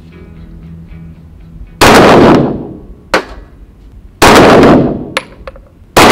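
Three 9 mm pistol shots from a Glock 17, about two seconds apart, each very loud and trailing off in a short echo.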